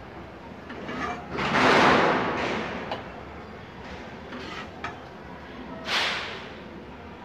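Thick egg masala being scooped with a spoon and dropped onto rice in a steel pot: two main wet swishes, the louder one about two seconds in and another near six seconds, with a few light clicks of the spoon against the pot.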